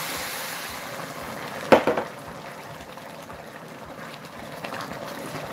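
Hot water poured into a hot cast-iron pot of rice and lamb, its hiss quickly fading as the liquid settles and bubbles while a silicone spatula stirs it. A couple of sharp knocks sound about two seconds in.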